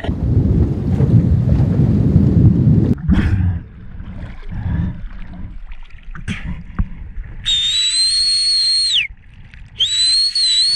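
Low rumble of water and exhaled scuba bubbles on a diver's head-mounted camera as he rises, then splashing as he breaks the surface. This is followed by two blasts of a shrill signal whistle, each about a second and a half long and dropping in pitch as it ends.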